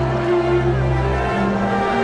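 Background music: slow held notes over a low sustained bass note, which drops away about a second and a half in.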